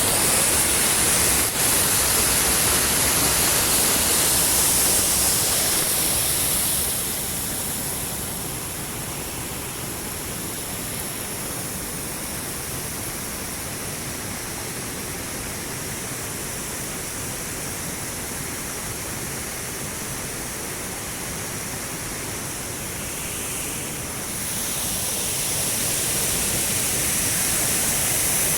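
Water rushing steadily over a small dam swollen by heavy rain, a continuous even roar of falling water. It drops to a softer level after about six seconds and swells back up near the end.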